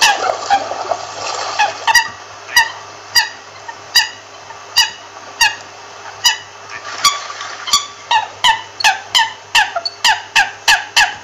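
American coot giving a series of short, clipped calls, each dropping slightly in pitch. They come about one or two a second at first and speed up to about three a second in the second half.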